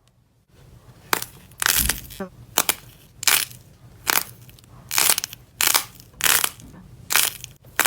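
Slime being pressed and squeezed by hand, giving a run of about ten sharp crunching crackles, one every second or less, after a brief silent start.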